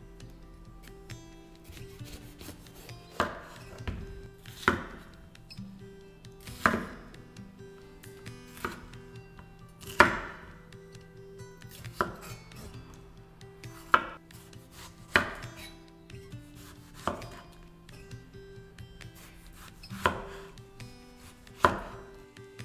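Kitchen knife slicing a red bell pepper and then a tomato on a wooden cutting board: about a dozen sharp knocks of the blade hitting the board, one every second or two.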